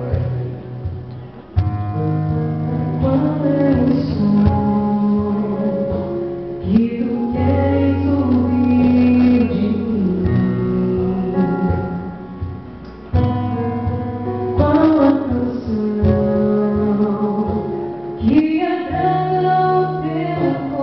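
A woman singing a gospel song over instrumental accompaniment with sustained chords.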